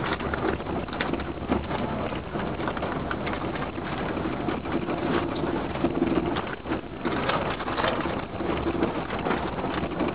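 Road and engine noise heard from inside a moving vehicle: a steady rumble with dense crackling on top.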